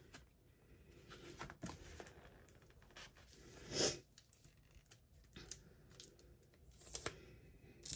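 Faint rustling and crinkling of plastic-sleeved sticker and embellishment packs being handled, with a louder rustle about halfway through and a few small clicks.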